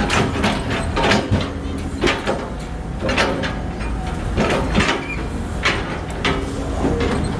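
Digger at work: a steady low rumble with repeated knocks and scrapes coming irregularly, roughly every half second to a second.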